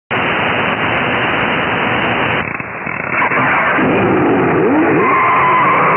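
Shortwave AM static through a Perseus software-defined receiver tuned to 6925 kHz. About two and a half seconds in, the hiss changes as a pirate station's signal comes up, with faint sliding tones and then a steady tone near the end.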